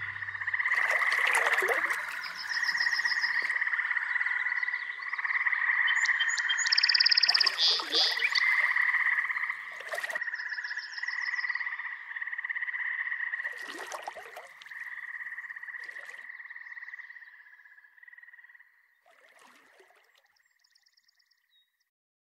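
A chorus of croaking animal calls in two steady pitches, pulsing continuously, with louder sharp calls standing out every few seconds and faint fast trills above them. It fades out over the last few seconds.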